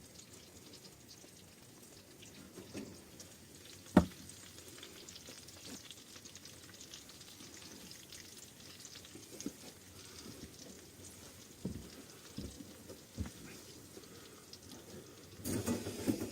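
Faint crackling with scattered small knocks and thumps, one sharp knock about four seconds in, and a short burst of clattering handling noise near the end.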